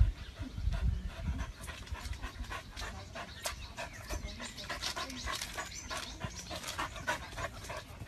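A dog panting rapidly, a quick run of short breaths, with a few low thuds in the first second and a half.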